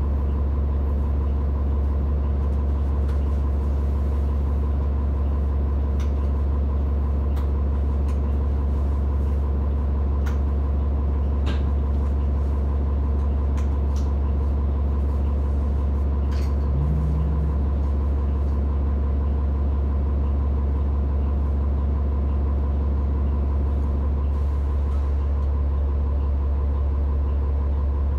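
Steady low engine drone with a constant hum, unchanging throughout, from an idling heavy vehicle. A few faint short clicks sound through it, and a brief low rising squeak about halfway through.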